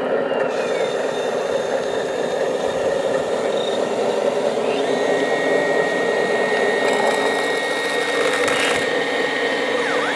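Electric hydraulic pump of a radio-controlled tipper semi-trailer running steadily as it holds and raises the tipping body, a motor-like hum with a steady high tone joining about halfway through.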